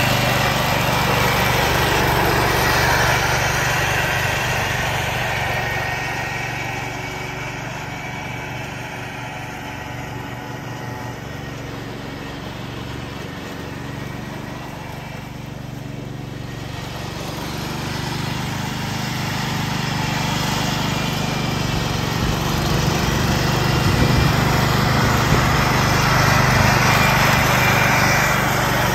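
1969 Ford 140 garden tractor's engine running steadily under load with its mower deck mulching leaves. It grows quieter as the tractor moves away around the middle and louder again as it comes back near the end.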